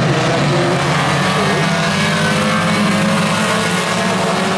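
A field of small Tuner-class compact race cars running together as a pack, their engines blending into a steady drone as the field comes to the green flag.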